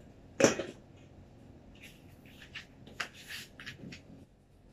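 A plate set down over a stainless-steel bowl of cut bottle gourd, a single sharp clatter about half a second in. Scattered light knocks and rustles of kitchen handling follow.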